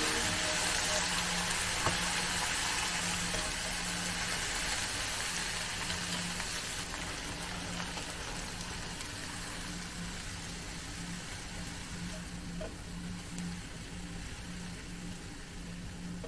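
Cabbage and shiitake sizzling in a nonstick frying pan with shiitake-soaking water just added, the hiss slowly dying down as the liquid cooks off.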